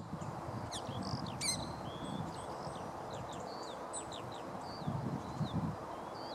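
Small birds chirping and calling, with many short high calls, several of them falling in pitch, over a low rumble.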